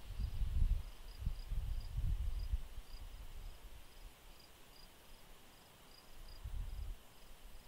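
Outdoor insect chirping: a thin, high-pitched chirp repeating a few times a second. Under it, a low rumble comes and goes in gusts, loudest over the first couple of seconds, fading, then returning near the end.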